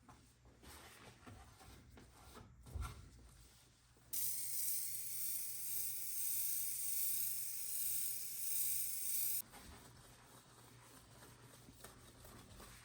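A dull thump about three seconds in, then a continuous high hiss of an aerosol spray held down for about five seconds, starting and stopping abruptly.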